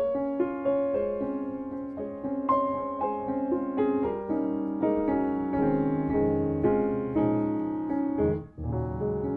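Background music: piano playing a gentle melody of held notes, with a brief break near the end.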